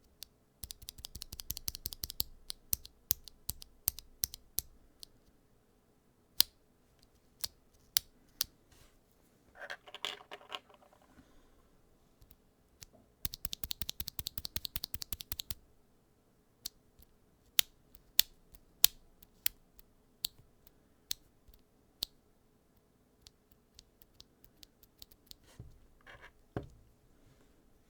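Mechanical keyboard with PBT keycaps being typed on: keys clacking in two fast rapid-fire runs, near the start and about halfway through, with single keystrokes at irregular intervals in between.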